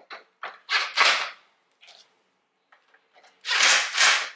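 Cordless drill/driver run in several short bursts, driving the fan-shroud bolts into the plastic top tank of a new radiator. The bursts are kept brief because the plastic is soft and easily damaged. The longest burst comes near the end.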